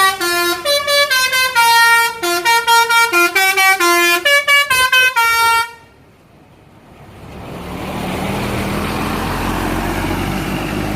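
Tourist bus 'basuri' telolet horn playing a fast melody of short, changing notes, several a second, that stops abruptly about six seconds in. After a brief lull a steady vehicle rumble rises and holds.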